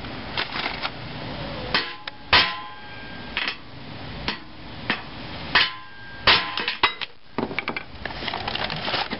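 Hammer blows driving an aluminium suspension bushing for a Nissan 240SX into its bore: about a dozen irregularly spaced strikes, several leaving a short metallic ring.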